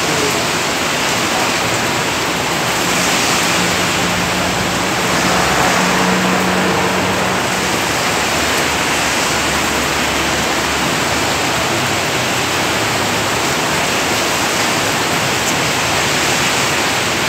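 Heavy rain falling steadily, a loud even hiss, with a faint low hum a few seconds in.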